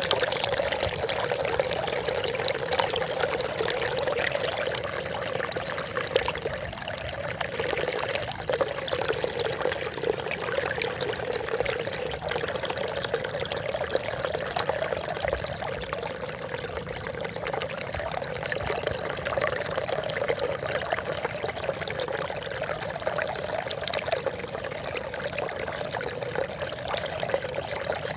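Running water trickling and splashing steadily, an unbroken babble of falling water.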